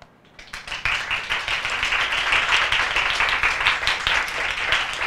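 A small audience applauding, starting about half a second in and quickly building to steady, dense clapping.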